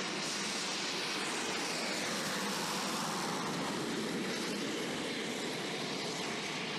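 A-29 Super Tucano's single turboprop engine and propeller running, a steady, even aircraft noise with no clear beat.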